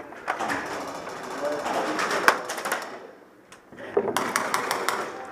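Indistinct voices with a single sharp knock about two seconds in, then about four seconds in a quick run of sharp pops, about five a second, from airsoft guns firing.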